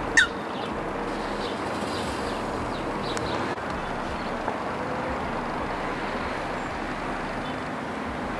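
Steady outdoor background noise, with a short, loud falling bird call just after the start and a few faint bird chirps in the first few seconds.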